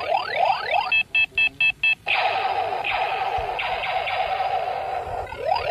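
Battery-powered 'Funny Gear' toy gun playing its electronic sound effects: quick falling laser 'pew' zaps, several a second. About a second in, a run of five short beeps cuts in, then a few seconds of noisy buzzing with a steady tone, before the falling zaps return near the end.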